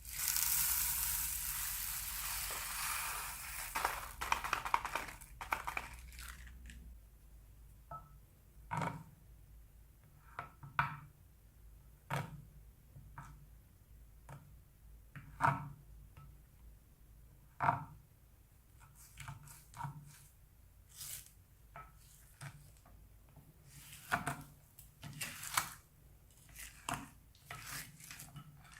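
Slime and plastic piping bags being squeezed and handled: about six seconds of steady crinkling, then single short squelches and pops every second or two.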